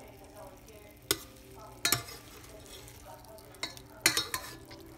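Metal tongs clacking against a stainless steel pan, a few sharp knocks in small clusters, while chicken thighs are turned in teriyaki sauce that sizzles underneath.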